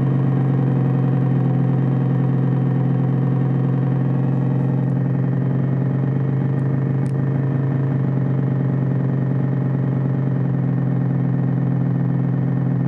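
Synthesizer drone held on one low, steady pitch, with a dense wavering buzz of overtones above it.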